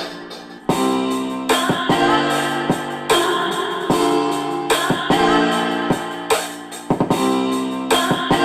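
A pop song with piano, guitar and drums played through 8-inch car-audio midrange speakers, with the bass cut so almost no deep low end comes through. Chords and regular drum hits.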